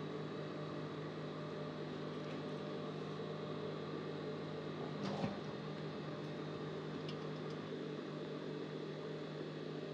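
Steady low electrical hum, with one short handling noise about five seconds in as the fabric pieces are moved.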